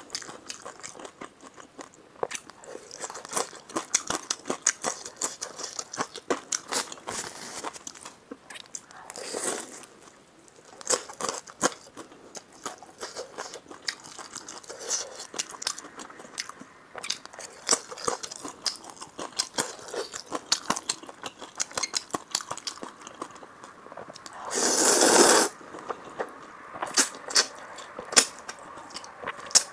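Close-miked eating of Buldak fire-chicken noodles: a steady run of wet chewing and lip-smacking clicks, with one loud slurp lasting about a second near the end.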